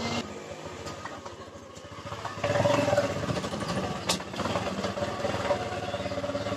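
Motorcycle engine running at low speed, quieter at first and louder from about two and a half seconds in, with a steady hum. A single sharp click about four seconds in.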